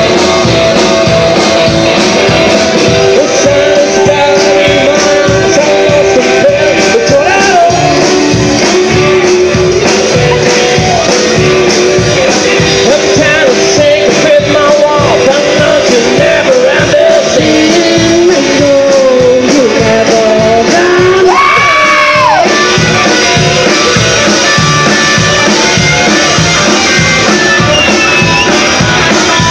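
Live rock and roll band playing loud: singing over acoustic and electric guitars, upright bass and a steady drum beat. The singing ends on one long wavering note about three-quarters of the way through, and the instruments carry on.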